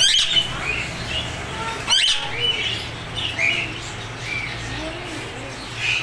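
Caged parrots, including a rose-ringed parakeet, chirping repeatedly, with two short, loud squawks, one at the start and one about two seconds in.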